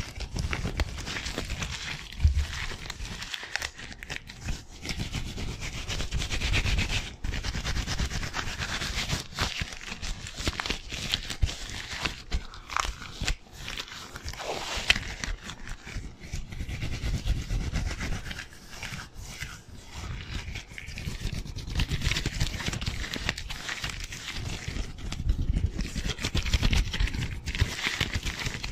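Disposable gloves rubbing and rustling as gloved hands move fast right at a foam-covered microphone: a dense, continuous rustle with many sharp crackles, and low thumps where the hands brush the foam cover.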